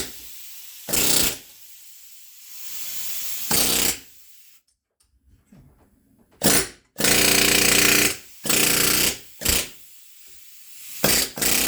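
Pneumatic rivet gun on its lowest setting, hammering in short bursts with one longer burst of just over a second, as it bends aluminium tabs over.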